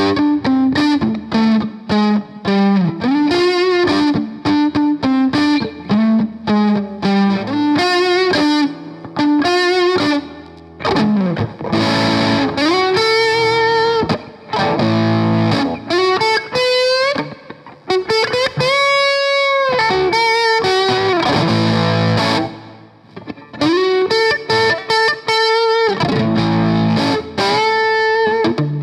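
Electric guitar played through a Boss BD-2 Blues Driver overdrive pedal. It opens with a fast run of single notes, then moves to lead phrases with string bends and held notes with vibrato.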